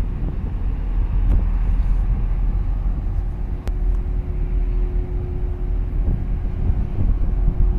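A low, steady drone from a large departing container ship mixed with wind rumbling on the microphone, and a faint steady hum running through it. There is one brief click a little past halfway.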